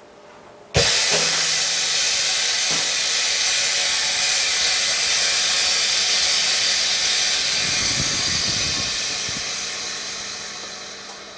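Compressed air hissing through an OCA bubble-remover pressure chamber. It starts abruptly about a second in and fades slowly.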